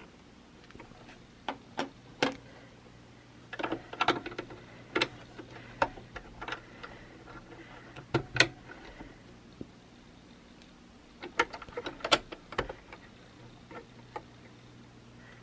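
Irregular small clicks and taps of metal and plastic sewing machine parts being handled and fitted: a screwdriver at the needle clamp and the presser foot going on. A faint steady low hum runs underneath.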